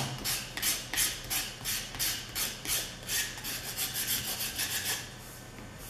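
A small knife scraping the trailing edge of a Master Airscrew 9x5 RC propeller blade in quick, even strokes, about three a second, stopping about five seconds in. Material is being shaved off the heavier blade to balance the propeller.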